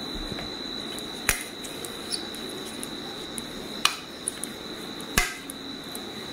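A few sharp clinks and knocks, about three in all, each a second or more apart, as a plate is handled and rubbed with oil. A steady high-pitched whine runs underneath.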